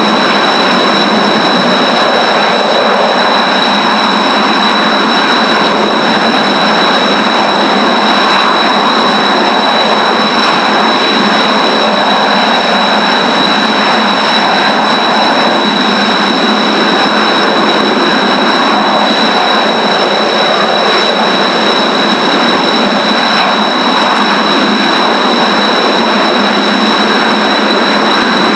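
Kawasaki T-4 jets' turbofan engines running at idle, a steady high whine over a loud rush of noise.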